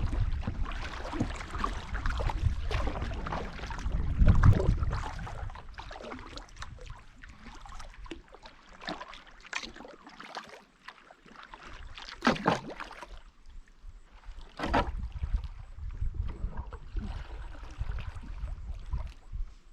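Canoe paddle strokes dipping into and pulling through lake water, with splashes and drips between strokes, the first few seconds buffeted by wind on the microphone. Two louder splashes stand out later on.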